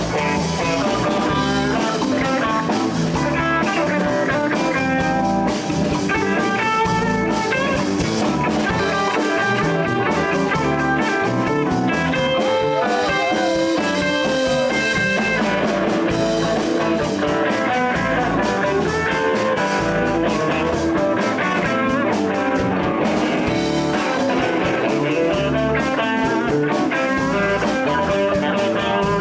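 Live blues band playing an instrumental break: electric guitar over bass and drums, with no singing.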